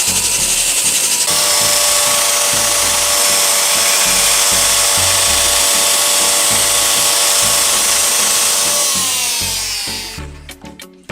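Electric power tool running steadily at speed, then switched off and spinning down with a falling whine near the end, over background music.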